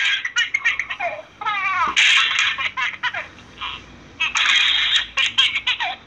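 Baby laughing in repeated bursts of giggles, with short pauses between fits.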